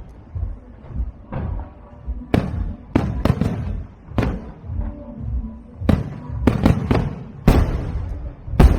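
Aerial fireworks shells bursting overhead: about a dozen sharp bangs at irregular intervals, each trailing off in a low rumble.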